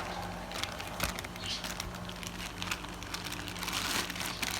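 Packaging of a new fishing reel rustling and crinkling as it is handled and opened, with irregular small clicks and crackles. An electric fan hums steadily underneath.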